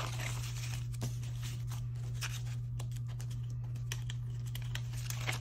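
Paper dollar bills being counted by hand: irregular crisp flicks and rustles of the notes, over a steady low hum.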